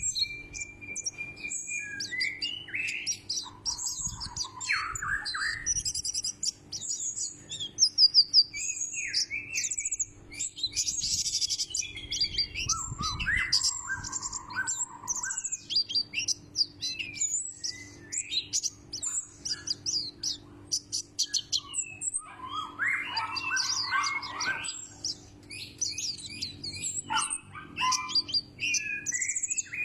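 White-eye (pleci) singing: long runs of rapid, high twittering chirps, broken now and then by lower warbled phrases.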